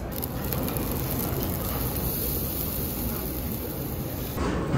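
Pork galbi sizzling over hardwood charcoal on a tabletop wire grill: a steady crackling hiss that gets louder about four and a half seconds in.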